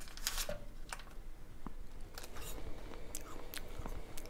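Pat of butter melting in a hot nonstick skillet, faint scattered crackling as a silicone spatula pushes it around the pan: the butter just starting to sizzle. A paper butter wrapper rustles briefly near the start.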